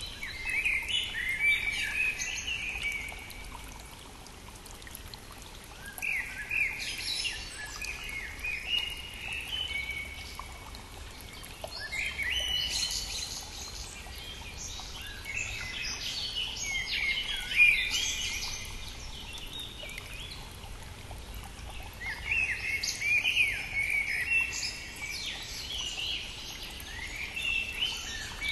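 Songbirds singing in four bouts of rapid, sweeping chirped phrases a few seconds apart, over the steady rush of a brook.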